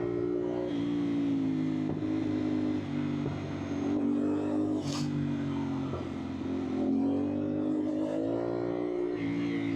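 CFMOTO 450SR's parallel-twin engine running while riding in traffic, its revs falling and rising several times, with a single sharp click about five seconds in.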